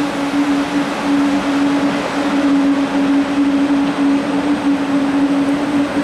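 TGV Atlantique high-speed train pulling out, its rear power car passing and moving away. The power car's motor gives a steady humming tone over the rolling rumble of the train.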